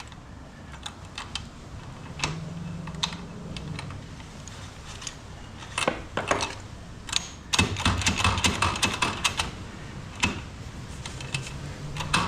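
Stainless steel retractable ratchet strap being worked: scattered clicks, with a dense run of quick clicks about eight seconds in.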